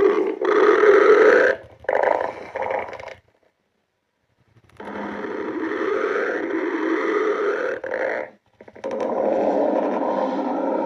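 A woman's stomach growling and gurgling, recorded close up and loud, in long rumbling stretches broken by short pauses, with a full second or so of silence about three seconds in.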